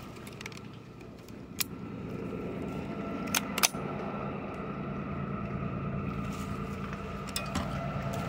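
A steady low engine hum with a few level tones, slowly growing louder, with a few sharp clicks over it.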